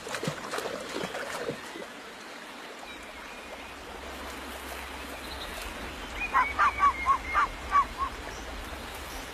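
A waterfowl calls in a quick run of about seven short notes, about six seconds in. Soft rustling comes before the calls.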